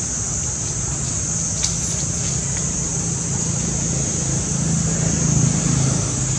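Steady outdoor forest ambience: a continuous high, even drone over a low rumble, with a couple of faint clicks about one and a half seconds in.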